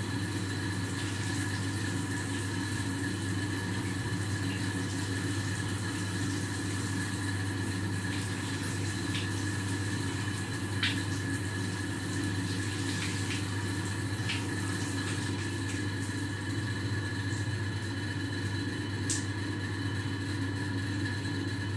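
A steady machine hum with a strong low drone and a few thin, even tones above it, unchanging throughout, with a few faint clicks now and then.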